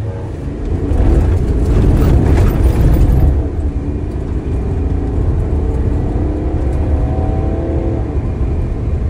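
Ineos Grenadier's turbocharged straight-six under hard acceleration from a standstill on a dirt track, heard from inside the cabin. A loud, deep rumble builds in the first seconds, then the engine note climbs steadily as the speed rises.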